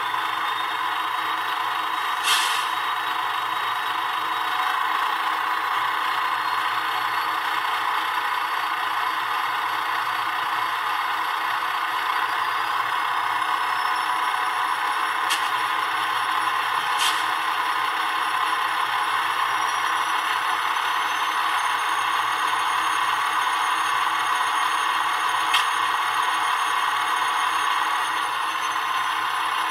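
Soundtraxx Tsunami2 sound decoder playing an ALCO diesel locomotive's engine sound through a small ESU Sugar Cube speaker in a model locomotive, running steadily with a rattling, clattering character. A faint high whine slowly rises in pitch, and four short sharp clicks come through, the first about two seconds in.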